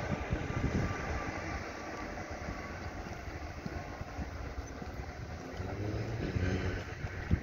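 Class 66 diesel locomotive running light, its two-stroke V12 diesel engine rumbling as it moves away. The sound fades over the first couple of seconds, then holds low and steady.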